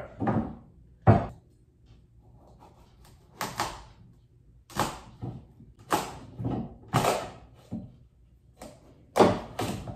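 A kitchen knife being worked through a tough acorn squash, with a series of irregular knocks as the blade and squash hit the cutting board.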